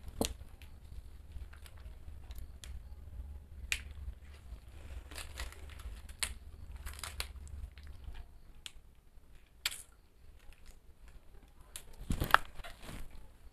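Plastic jelly cups and their wrappers crinkling and clicking as they are handled, torn open and squeezed, with a louder sharp sound about twelve seconds in.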